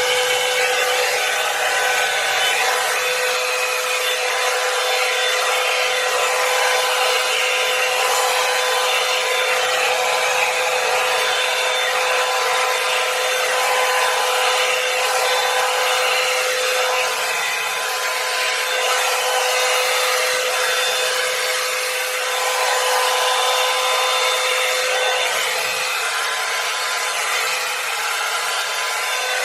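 Revlon One-Step hot-air brush dryer running on its cool setting: a steady motor whine over the rush of air.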